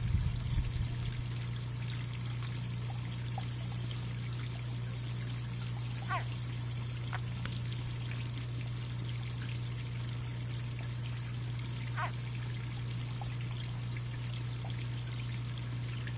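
Steady trickling water, an even hiss with no change in level, with two short chirps about six seconds apart.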